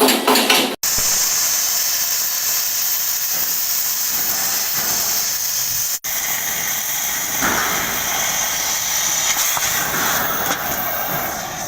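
A steady machine hiss, broken by two brief dropouts, about a second in and about six seconds in.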